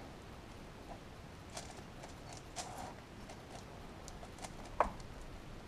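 Faint scattered clicks and light knocks of actuator parts being handled and fitted together, with one sharper click near the end.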